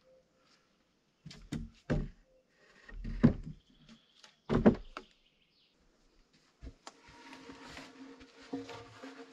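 Heavy wooden knocks as logs are laid across the dugout trench, four dull thuds over the first five seconds. Then a steady rustling and crackling of handling and moving about on soil and wood chips.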